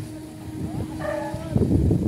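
Berthed car ferry's engine running with a steady low hum. A short pitched call comes about a second in, and a burst of low rumble rises near the end.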